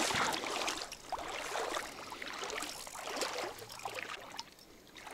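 Irregular splashing and sloshing of water, growing faint about four seconds in.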